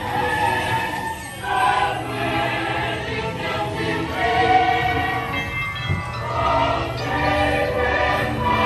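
A choir singing over orchestral music from the dark ride's soundtrack.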